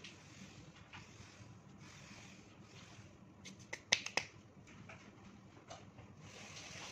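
Hands clapped together a few quick times near the middle to knock flour off them, three or four sharp slaps with the first the loudest, over faint rubbing of hands on a floured log of cinnamon-roll dough.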